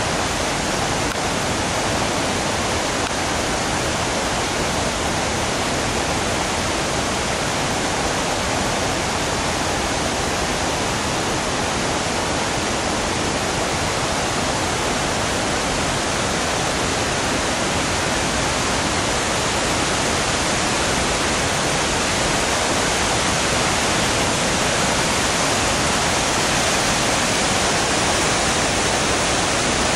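River rapids rushing over rock ledges: a loud, steady wash of water noise, slightly louder in the last third.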